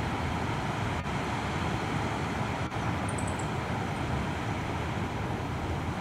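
Steady wind noise on the microphone with a low rumble. About three seconds in, a meadow bunting gives a quick run of four short, very high notes, falling slightly in pitch.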